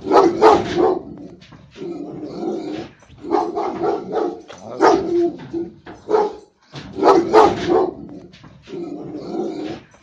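A caged guard dog barking over and over, in bouts of several barks with short pauses between them.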